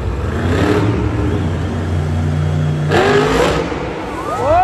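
Monster truck's supercharged V8 engine running with a low rumble, then revving hard about three seconds in as the truck rears up onto its back wheels. A high whine rises steeply near the end.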